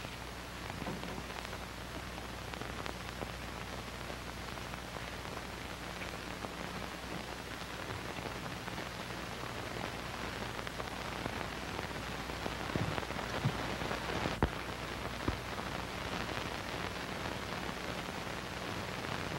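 Steady hiss and low mains hum of an old film soundtrack, with a few scattered crackles and one sharp click about two thirds of the way through.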